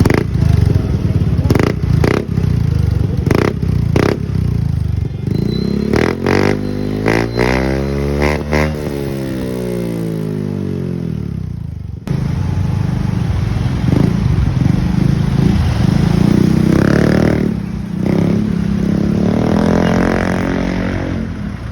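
Yamaha Mio Gravis scooter's single-cylinder engine breathing through an Apido V4 aftermarket exhaust, revved up and down several times. The first several seconds carry a string of sharp cracks, and the sound breaks off suddenly about halfway before the revving starts again.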